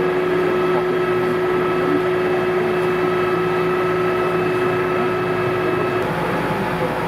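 Heavy diesel engine of a mobile crane running steadily under load while it lifts a concrete track slab, with a steady whine over the engine noise; the pitch shifts about six seconds in.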